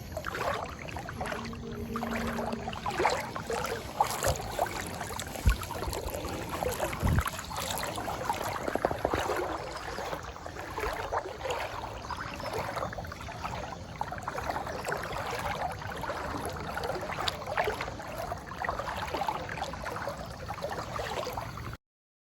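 Floodwater splashing and sloshing irregularly as someone moves through deep water, with a couple of dull knocks; the sound cuts off suddenly near the end.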